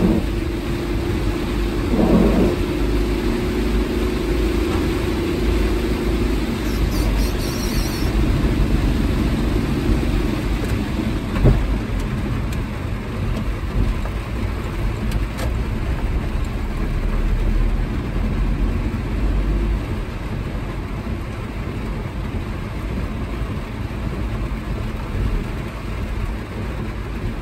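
Heavy downpour pattering on a car's roof and windshield, heard from inside the cabin, with the wipers sweeping and the car's tyres and engine running underneath. A single knock about eleven seconds in.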